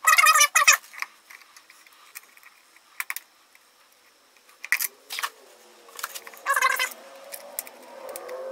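Short metallic clicks and rattles from hand work on a classic car's headlight, as the retaining-ring screws are started and turned with a screwdriver. Two louder clattering bursts, one at the start and one about six and a half seconds in, with single clicks between them.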